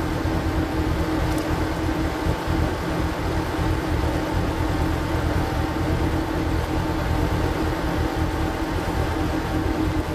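Power tiller engine running steadily, driving a screw-cone log splitter, played back at double speed.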